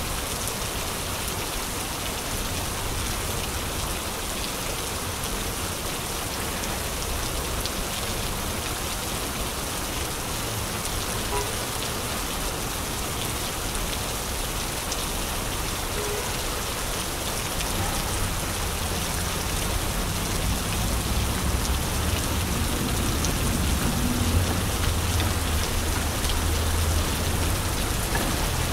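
Steady rain falling on a wet street, a dense even patter, with a low rumble building over the last third.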